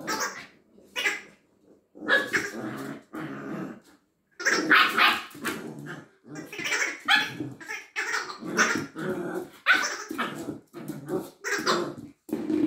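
Eight-week-old border collie puppy barking repeatedly at a ball toy, a string of short barks about one a second with growls mixed in.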